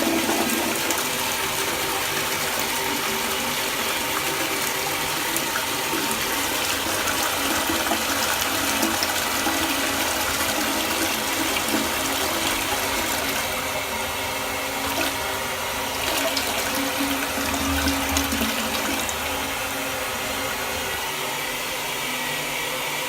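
Armitage Shanks Sandringham close-coupled toilet flushing, a steady rush of water that carries on as the cistern refills, easing slightly about halfway through and again near the end.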